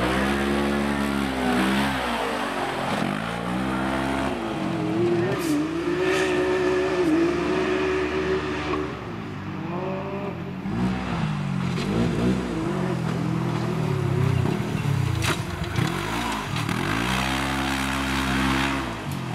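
Side-by-side UTV race car's engine revving hard, its pitch climbing and dropping again and again as it accelerates out of corners and lifts off, with a longer steady high-rev run in the middle.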